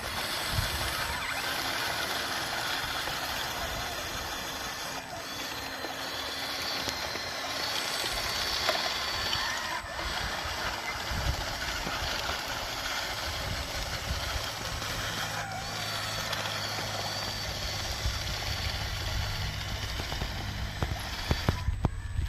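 Radio-controlled model construction trucks running over dirt: thin high whines of small electric motors and gears over a steady noisy background. About two-thirds of the way through, a steady low engine-like hum comes in and holds.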